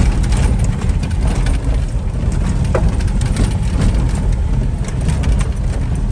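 Cabin noise of a moving vehicle on the road: a steady low rumble with frequent short rattles and knocks.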